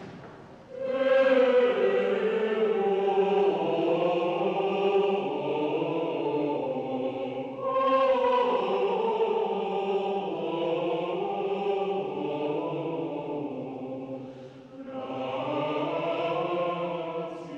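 Church choir singing a slow sacred chant in three long, sustained phrases, with short pauses for breath between them.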